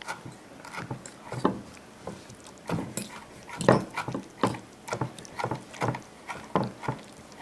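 Kitchen knife chopping cilantro on a wooden cutting board with a rocking cut: the blade knocks on the board at an uneven pace, about two knocks a second.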